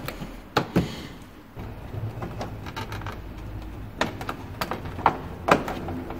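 Light clicks and knocks of hard plastic being handled and pressed into place, as a Honda Gold Wing's plastic side cover panel is fitted back on. They come as a pair near the start and as several more from about two-thirds of the way in.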